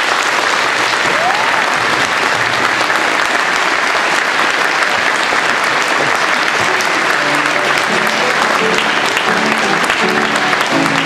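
Audience applauding steadily, with instrumental music entering beneath the clapping about seven seconds in.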